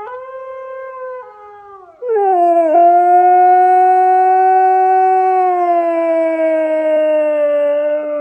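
Husky howling: a shorter, quieter howl first, then from about two seconds in one long, much louder howl, held steady and slowly falling in pitch.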